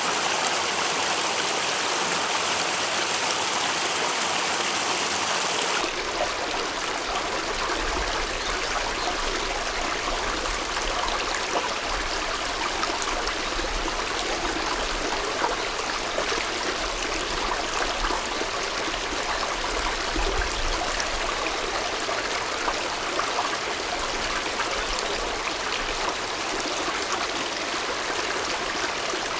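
Mountain headwater stream rushing and babbling over rocks in a steady flow. About six seconds in the sound cuts abruptly to a different stretch of stream, less hissy and fuller, with a low rumble underneath.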